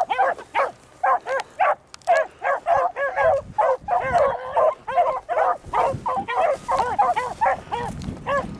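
Beagle hounds baying on a rabbit's scent trail: a rapid, continuous run of short, ringing hound calls, several a second and often overlapping, with a brief pause about two seconds in.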